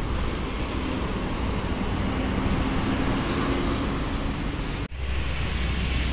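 Heavy road traffic passing close by: a Mercedes-Benz Jetbus coach's engine running as it pulls past with a steady engine tone. After a break about five seconds in, a deeper low rumble of trucks and a motorbike going by.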